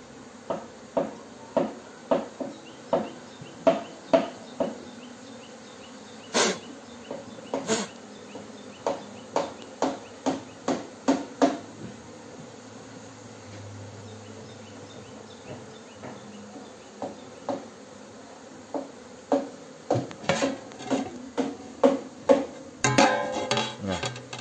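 Repeated sharp knocks, about two a second, stopping for a few seconds midway and turning into a denser clatter near the end, over a faint steady buzz of honey bees.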